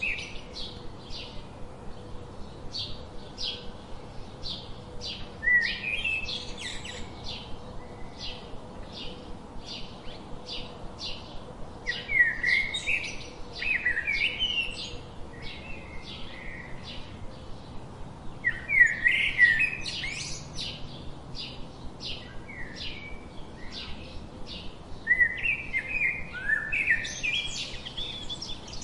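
House sparrows chirping: a steady run of short, high chirps about two a second, broken four times by louder bursts of busier chattering calls.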